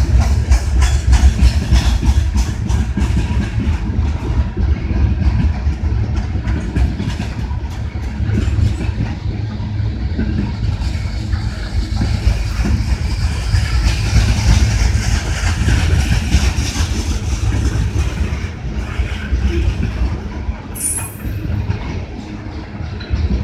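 Loaded coal hopper cars rolling past, their steel wheels clacking over rail joints above a heavy steady rumble. There is a brief high squeal near the end.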